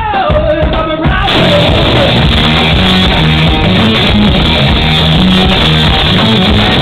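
Rock band playing live. A held vocal note slides down at the start over a few drum hits, then about a second in the full band comes in loud with electric guitar and drums.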